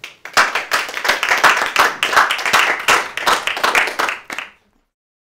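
Small audience applauding, a dense patter of hand claps that cuts off suddenly about four and a half seconds in.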